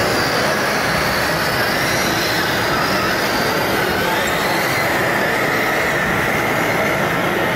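Radio-controlled scale heavy-haulage trucks driving slowly: a steady dense machine rumble with a thin high whine that wavers up and down in pitch.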